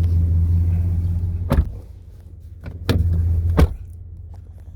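Ram 1500 Classic Warlock pickup's engine idling, a steady low hum. Two sharp clicks come about two seconds apart, and after each one the hum drops away, returning in between.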